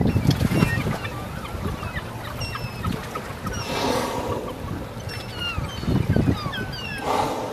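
A flock of gulls calling over the water, many short high cries overlapping. About four seconds in, and again near the end, a humpback whale blows, a breathy whoosh with a low tone in it. Wind buffets the microphone at times.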